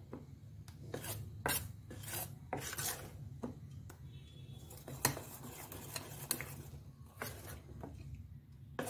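Steel spoon scraping against the sides of a stainless steel bowl in short, uneven strokes, beating besan (gram flour) batter smooth for boondi.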